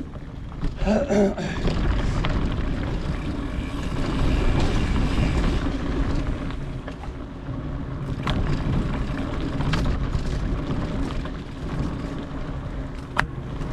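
Wind buffeting an action camera's microphone as it moves quickly along a dirt trail, a steady low rumble, with a few sharp clicks or knocks near the end.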